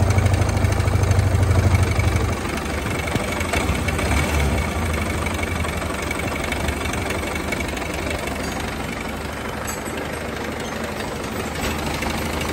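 Yamaha R15 V3's single-cylinder engine running with a clattering noise from the left side, where the timing chain and its adjuster sit. The mechanic puts it down to a worn timing chain that needs replacing. A louder low hum eases off about two seconds in, and the engine then runs on steadily.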